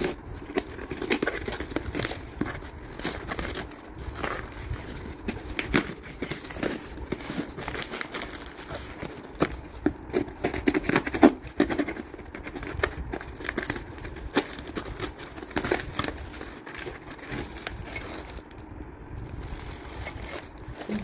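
Packaging crinkling and rustling, with many irregular clicks and scrapes, as a spoon stand is unwrapped and handled.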